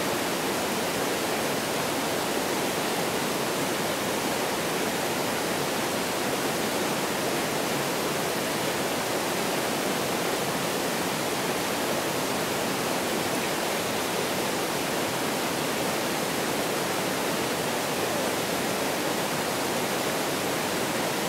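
Mountain stream rushing water, a steady, unbroken wash of noise with no changes.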